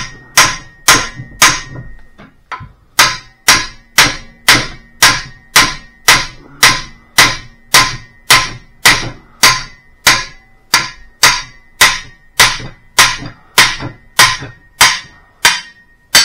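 Short heavy hammer striking the end of a large 1-5/8-inch steel wrench about twice a second, with a short break about two seconds in, and the wrench ringing between blows. The blows are shock-loading a tight piston nut on a hydraulic cylinder rod to break it loose.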